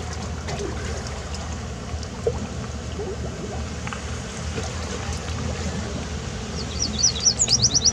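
Boat motor running steadily with water rushing along the hull; near the end, a quick series of high chirps.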